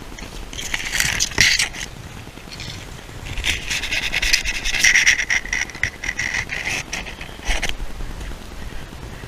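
Dry beech leaves rustling and crackling close to the microphone in two bouts: a short one about a second in, and a longer one from about three seconds in to near the end.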